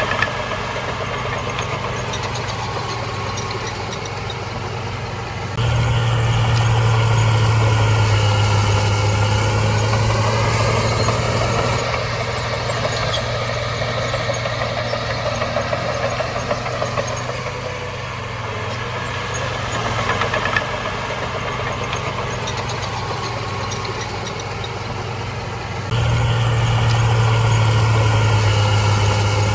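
Heavy diesel engine of an earthmoving machine running steadily, with a deep low hum; it turns abruptly louder about six seconds in and again near the end, and its pitch wavers in the middle.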